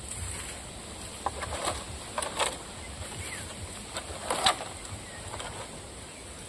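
Leafy twigs rustling and crackling in short bursts as a gray langur handles the branches, the loudest about four and a half seconds in, over a steady high-pitched buzz and a low wind rumble on the microphone.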